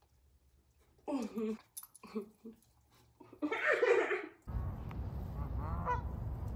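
A woman laughing in several short bursts, loudest about three and a half seconds in. Then a sudden change to steady wind rumble on the microphone, with a single goose honk near the end.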